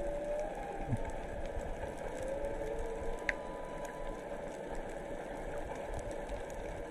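Humpback whale song heard underwater: a held tone near the start, a call sweeping steeply down in pitch about a second in, then more held tones in the middle, over a steady crackling background. A single sharp click about three seconds in.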